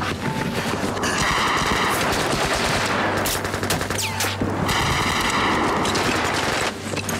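Machine-gun fire in long rapid bursts, with short breaks between them.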